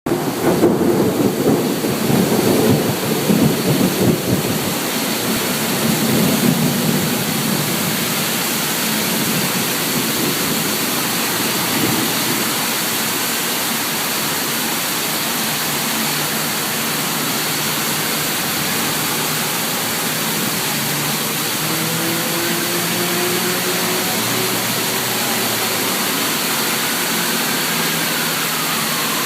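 Heavy rain falling steadily with rumbling thunder over the first several seconds. Later the thunder dies away to a steady rain hiss, with a faint low drone joining in about halfway through.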